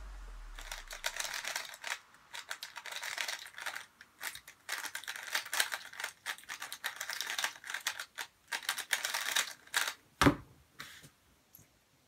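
Gan/Rubik's World Championship edition 3x3 speed cube being turned fast, a dense run of plastic clicks and clacks with short pauses. About ten seconds in, a single sharp thud as the solve ends.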